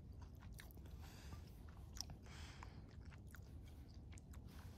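Faint chewing of a bite of soft, stringy braised beef, with a few small clicks.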